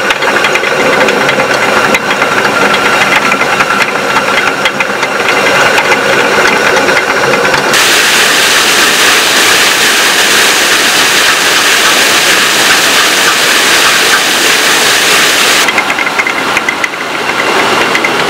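Traditional Nepali water mill (ghatta) running, its water-turned millstone grinding barley with a steady rapid clatter. About eight seconds in this gives way to a loud rush of water pouring out from under the mill, and the clattering mill sound comes back near the end.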